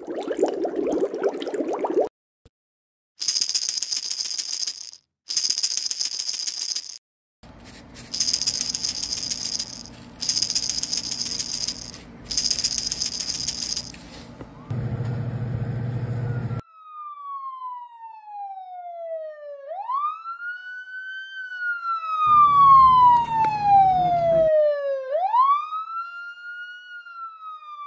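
Rattling in five short bursts, then a siren wailing. Its pitch slides slowly down over about three seconds and snaps back up, twice.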